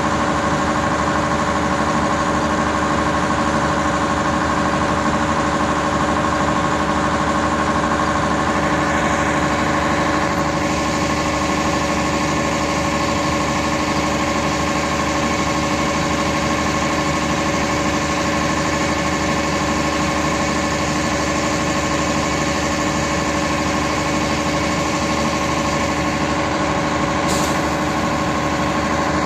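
MAN diesel railcar standing with its engine idling: a steady, unchanging drone with a constant hum. A brief click about two seconds before the end.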